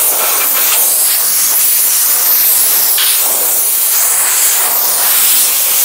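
Compressed-air blow gun blasting a steady, loud hiss of air. It is blowing leftover water out of the gaps around a folded-back car side mirror after a touchless wash.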